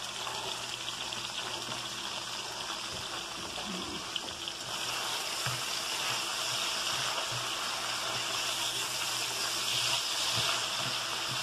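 Sliced bell peppers sizzling in hot oil in a nonstick frying pan: a steady hiss that grows louder about halfway through, as a spatula stirs them, with a few faint taps.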